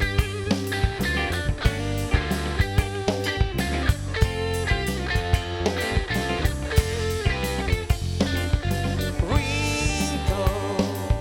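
Rock band playing an instrumental passage without vocals: guitar, bass and drum kit with a steady beat.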